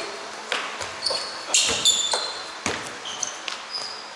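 Basketball bouncing on an indoor court, several separate bounces, with short high squeaks of sneakers on the floor in between.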